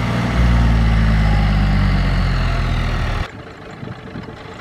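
John Deere 5310 tractor's three-cylinder diesel engine running under load as the tractor pulls a load of rice sacks through deep mud, a loud steady low drone. The sound drops off abruptly about three seconds in, leaving a much quieter background.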